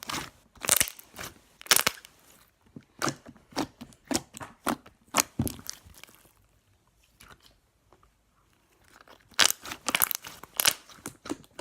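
Stretchy store-bought slime being poked and squeezed, giving irregular sticky pops and crackles. The pops go quiet for a few seconds midway, then come back as a quick cluster near the end.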